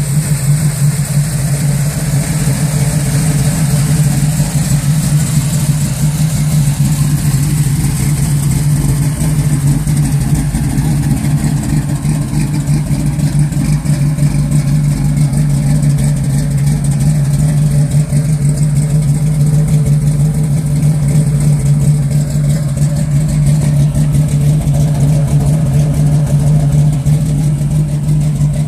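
1972 Chevrolet Camaro Z28's radically cammed 350 V8, bored to 377, idling steadily.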